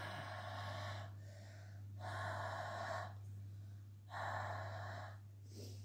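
A woman breathing slowly into her cupped hands, three long breaths of about a second each with short pauses between, as the exhaling step of a home charm ritual.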